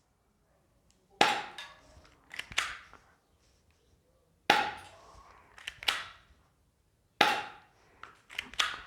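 Airsoft gun firing three single shots, each a sharp snap about three seconds apart, each followed about a second later by a few quieter clicks.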